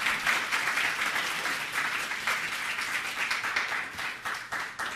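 Audience applauding, a dense patter of many hands clapping that begins to die away at the very end.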